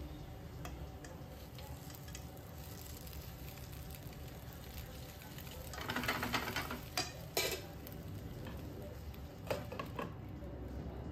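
Dumplings frying in oil in a nonstick pan, a steady sizzle. About six seconds in there is a louder stretch of sizzling and scraping as they are moved about with a fork. A couple of clinks follow near the end as a glass lid is set on the pan.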